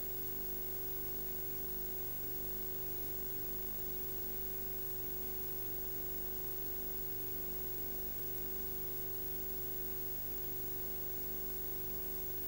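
Steady hiss under a constant electrical hum, with no other sound.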